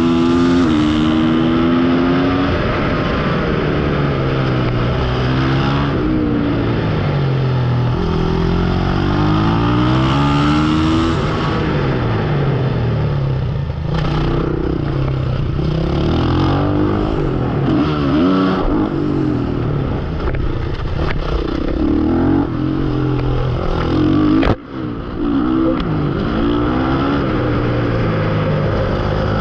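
Supermoto motorcycle engine heard from on the bike, revving up through the gears with a drop in pitch at each shift, then falling and rising again as it brakes for corners and accelerates out. The sound dips briefly about 25 seconds in.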